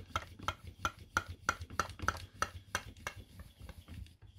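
Small Proxxon bench mill running faintly with a low hum and a light, regular ticking, about three ticks a second.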